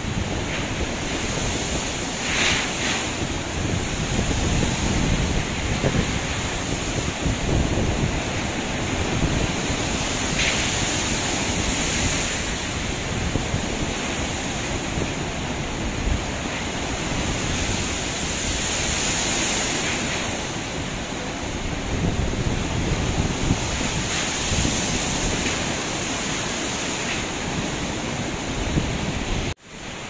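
Heavy typhoon surf crashing against and over a concrete pier, with strong gusting wind buffeting the microphone. The sound drops out for a moment near the end.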